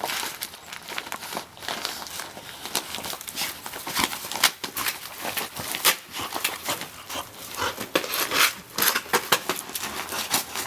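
Labrador retriever ripping open gift wrapping: a quick, irregular run of crackles, crinkles and tears from the wrapping.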